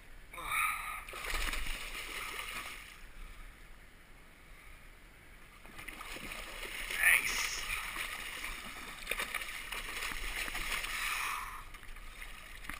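A big flathead catfish thrashing and splashing at the water's surface beside a boat as it is hand-lined in on a bankline. The splashing comes in two spells, loudest about seven seconds in.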